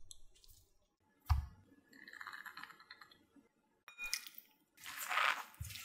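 Food being handled in the kitchen: a sharp knock about a second in, soft rustling, a click, then a louder scraping or squishing burst near the end followed by another knock.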